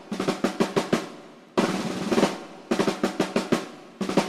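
Drum-heavy intro music: runs of rapid snare drum strikes and rolls, each run hitting hard and then fading, over a steady low tone.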